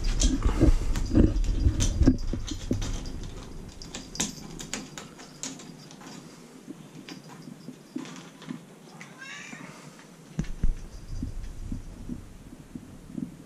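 A kitten's claws scratching and catching on a bare wooden pillar: a quick run of scratchy clicks with low bumps over the first few seconds, thinning out after that. A short, high meow comes about nine seconds in.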